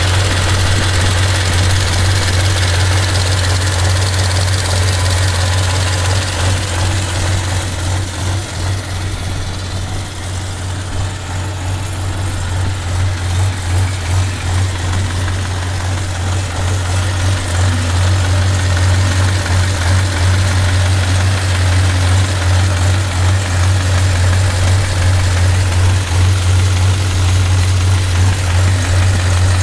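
Massey Ferguson tractor's Perkins V8 diesel engine idling steadily, with a deep even throb.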